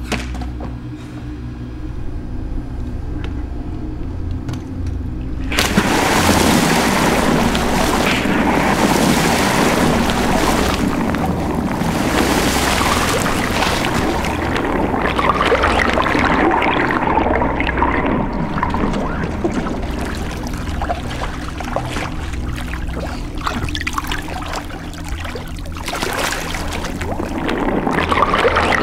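Water splashing and sloshing, starting suddenly about five seconds in and surging unevenly, easing off for a while before swelling again near the end, over a low steady hum.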